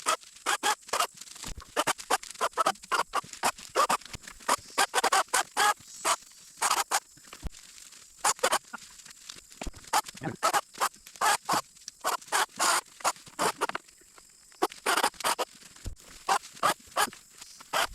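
Brush and small saplings crackling and snapping in quick, irregular clusters as they are cleared.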